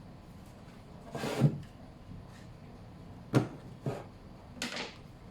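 Four short knocks and thuds of things being handled and set down during bread making: a louder one about a second and a half in, a sharp one a little past the middle, then two lighter ones close after it.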